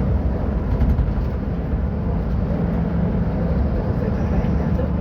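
Diesel engine of a Mercedes-Benz O500U city bus with a Voith automatic gearbox, running with a steady low rumble.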